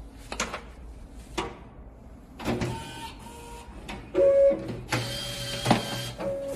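Electric automatic booklet maker working through a set of sheets: its motor-driven feed and fold mechanism runs in spells, punctuated by sharp clicks and clacks. There is a short, loud whir about four seconds in, then a longer run with clacks as the folded booklet is pushed out.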